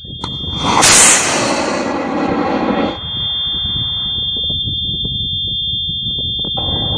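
High-power model rocket motor firing at liftoff, heard close to the pad: a loud rushing hiss that peaks about a second in and cuts off sharply about three seconds in, leaving a low steady rumble. A steady high-pitched tone runs underneath.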